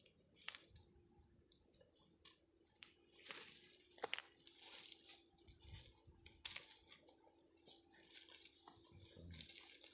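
Faint rustling and crackling of dry leaf litter and a nylon mesh sack being handled, with scattered small clicks, as live snakes are fed into the sack.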